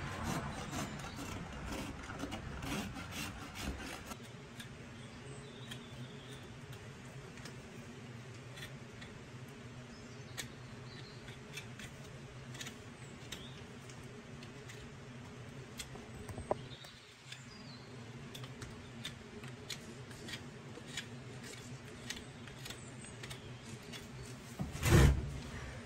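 Farrier's hoof rasp scraping a donkey's hoof in rapid strokes for the first few seconds, then quieter, scattered scrapes and clicks of hand work on the hoof over a faint steady hum. A louder noise comes near the end.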